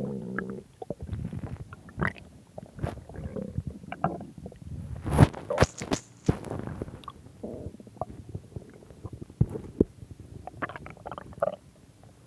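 A person's stomach growling and gurgling: irregular rumbles, squelches and small pops, with a pitched growl at the start and a louder gurgling burst about five seconds in.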